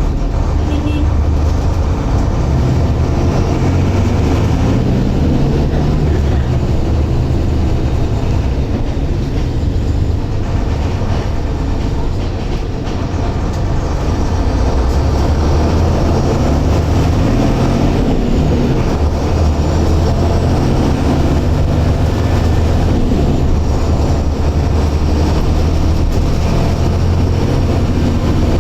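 Mercedes-Benz OF-1721 bus's six-cylinder turbodiesel engine running under way. Its note rises and falls repeatedly as the bus accelerates and changes gear, and it eases off briefly about 12 seconds in.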